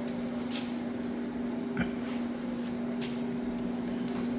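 Steady machine hum with one even pitch running throughout, and a light click about two seconds in.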